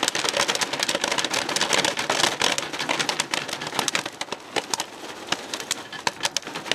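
Popcorn popping rapidly inside a foil-domed stovetop popcorn pan on a portable gas stove: a dense crackle of pops that thins out over the last few seconds as the batch nears the end.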